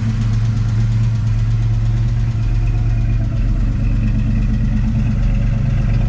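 1989 Mustang's 5.0 L (302) small-block Ford V8 idling steadily, breathing through long-tube headers and a true dual exhaust with Flowmaster mufflers, on a Trick Flow Track Max cam.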